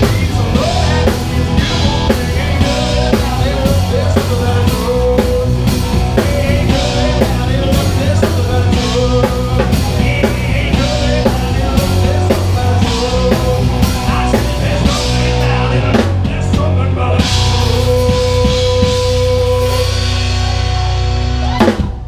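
Live rock band playing a song with a full drum kit and amplified guitars, at a steady driving beat. Near the end it stops on one hard final hit, leaving a chord ringing.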